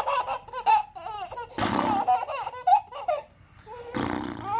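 A baby laughing in a run of short, high giggles, broken by a few louder breathy bursts of laughter.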